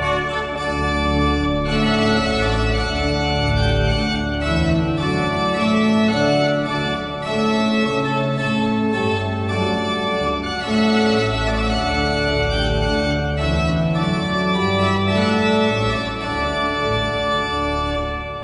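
Organ music: sustained chords whose notes change about every second, with low bass notes underneath.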